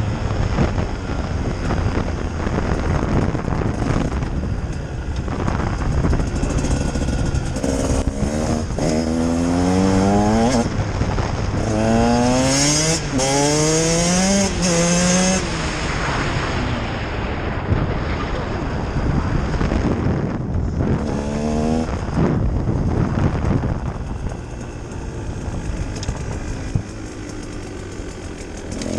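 2018 Husqvarna TE 150 150 cc two-stroke enduro engine under way, revving hard and dropping back again and again, its pitch climbing steeply through several accelerations before easing off near the end.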